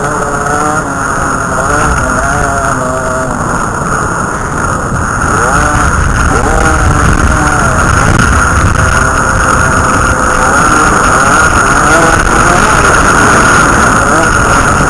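Dirt bike engine revving up and down as it rides a dirt track, the pitch rising and falling again and again over a heavy low rumble, getting louder about five seconds in.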